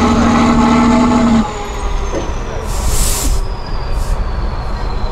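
Diesel engine of an 8x8 trial truck working hard up a steep climb, held at steady revs until about a second and a half in, then dropping off to a lower rumble. After that come two short hisses of released air, and a faint whistle falls slowly in pitch.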